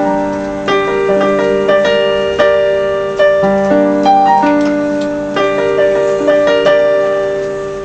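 Electronic keyboard playing a piano-voiced instrumental passage: held chords with a melody over them, new notes struck every half second to a second, slowly fading near the end.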